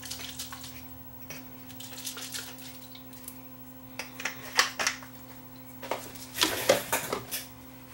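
Scattered light clicks and clatter of small metal parts being handled on a workbench, in bursts every second or two, over a steady low electrical hum.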